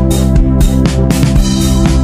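Background electronic dance music with a steady drum beat, about two hits a second.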